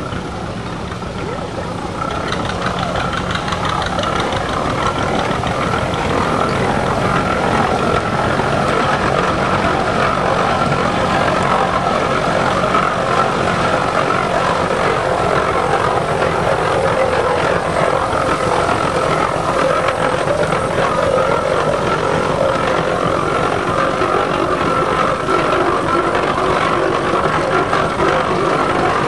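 Steam traction engine running, a steady, dense mechanical clatter that grows louder over the first few seconds.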